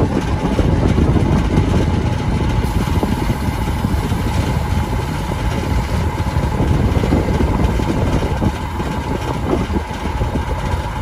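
Diesel engine idling steadily, with a faint steady whine above its low running noise.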